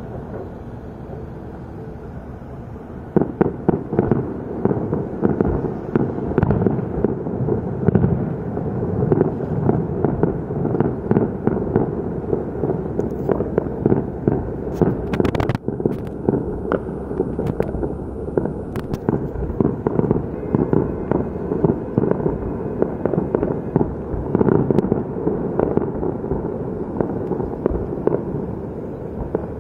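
Fireworks display heard across a river valley. After a low rumble, a dense run of dull bangs and crackles starts about three seconds in and goes on without a break, dipping briefly about halfway through.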